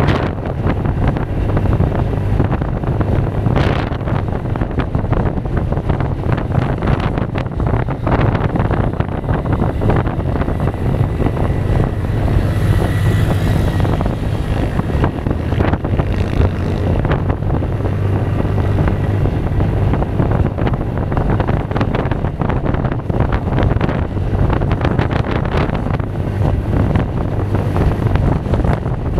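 Kymco Xtown 300i maxi scooter's single-cylinder engine running steadily under way, a constant low drone, with wind gusting over the microphone.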